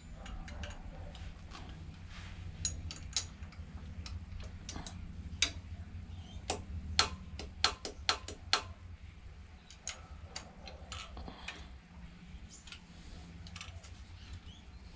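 Ratchet wrench clicking in short runs of sharp clicks, most of them in the middle, as the bolts holding the cam sprocket to the camshaft of a Honda CT110 engine are undone. A low steady hum sits underneath.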